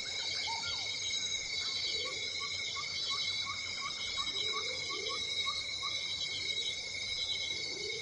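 Steady, high-pitched insect chorus running unbroken, with a bird repeating a short chirp about four times a second through the middle.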